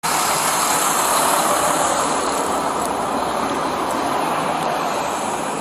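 Highway traffic noise: a steady rush of tyres and engines passing on the road, with the high hiss easing about two seconds in.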